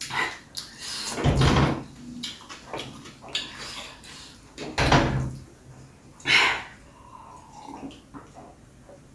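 Eating and drinking sounds close to the microphone: chewing on food eaten by hand, and sips from a plastic cup. There are two louder dull thumps, about a second and about five seconds in.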